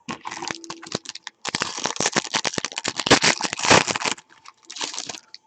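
The wrapper of a trading-card pack being torn open and crinkled by hand, in a rapid run of crackles that comes in three spells, loudest in the middle.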